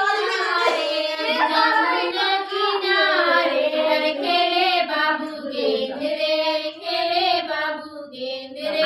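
High-pitched voices singing a song, the melody carried without a break and easing briefly near the end.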